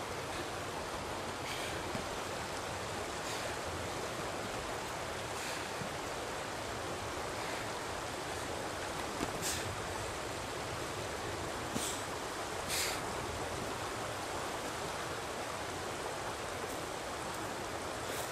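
Steady rushing of a mountain river, with a few brief sharp high sounds around the middle.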